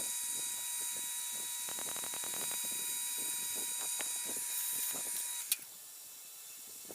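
Metal lathe running with a steady motor whine and some light rattling, then switched off about five and a half seconds in, ending with a click.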